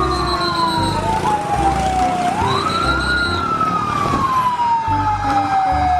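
Fire engine siren wailing. It falls slowly in pitch, sweeps quickly back up about two and a half seconds in, then falls slowly again.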